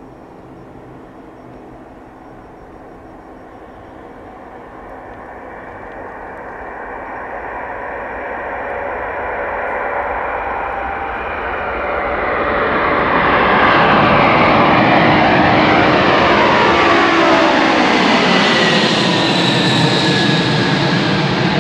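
Four Progress D-18T turbofans of an Antonov An-124 at takeoff power, growing steadily louder over the first dozen or so seconds as the jet rolls closer. It then stays loud as it passes close by, its whining tones dropping in pitch as it goes past.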